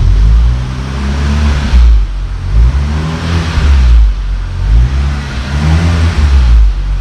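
Chevrolet Malibu engine revved several times while parked, each rev rising and falling, heard through its aftermarket valved cat-back exhaust with the valve closed. Closed, it sounds very quiet, close to a stock exhaust.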